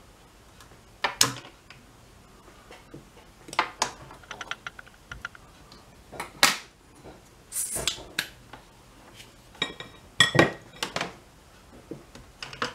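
Tweezers, a soldering iron and small parts clicking and clinking against the workbench while capacitors are being desoldered from an amplifier circuit board. The sound is a scattered series of sharp clicks and knocks, the loudest about a second in, midway through, and a couple of seconds before the end.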